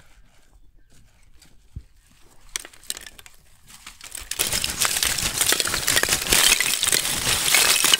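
Lump charcoal poured from a sack into a brick grill pit, the pieces clattering and clinking onto the pile. It begins with a few scattered clinks and becomes a loud, continuous clatter from about four seconds in.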